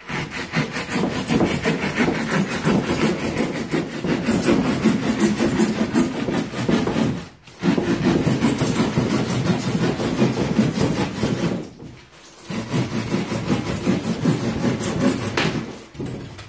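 Hand keyhole saw cutting through a sheet of extruded polystyrene foam board, fast back-and-forth strokes rasping through the foam, with two short pauses.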